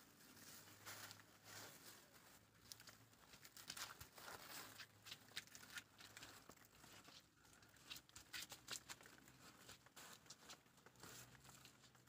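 Near silence with faint, irregular rustling and scraping noises.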